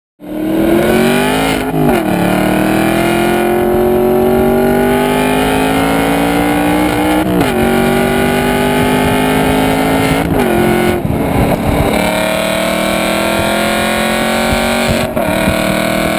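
Aston Martin V8 Vantage's V8 exhaust, recorded close to the tailpipe, running hard under acceleration. The pitch climbs slowly and is broken by brief dips at gear changes several times.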